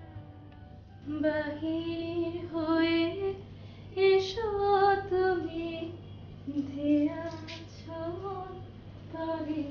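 Background song: a woman singing melodic phrases that begin about a second in, over soft instrumental backing.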